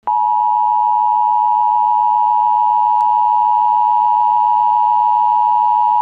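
Emergency Alert System attention tone: a loud, steady electronic tone at one unchanging pitch, starting abruptly.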